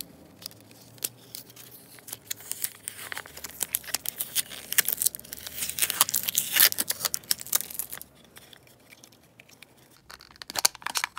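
Packaging being torn and crinkled open by hand, with a dense run of tearing and rustling for several seconds, then a brief lull and a few more crackles near the end.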